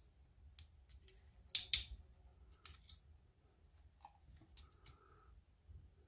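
Small sharp metallic clicks and taps of steel tweezers handling lock pins in an ERA oval cylinder and over a plastic pin tray. The loudest is a sharp double click about a second and a half in, with softer scattered ticks after it.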